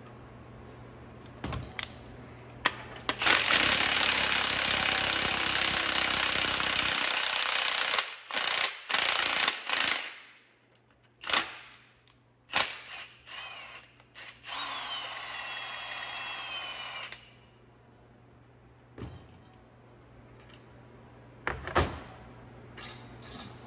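Cordless Milwaukee M18 Fuel impact wrench hammering on a bolt at the front of a GM LS engine's crankshaft for about five seconds, then several short bursts of hammering. After that comes a few seconds of quieter spinning with a slightly falling whine, and a couple of clicks near the end.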